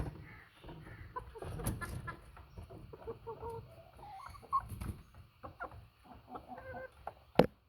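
White Buff heavy hens clucking in short, scattered calls, with a sharp knock about seven seconds in that is the loudest sound.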